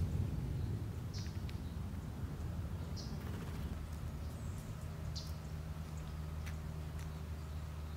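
Birds chirping: short high chirps every second or two over a steady low rumble, with a few sharp clicks later on.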